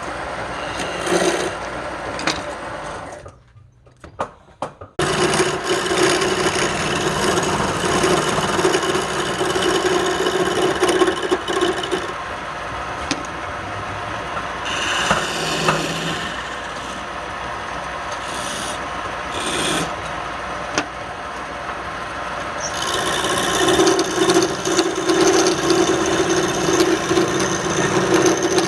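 Wood being worked on a turning lathe: a continuous scraping against the spinning workpiece, with a steady hum at times and a short drop about three to five seconds in.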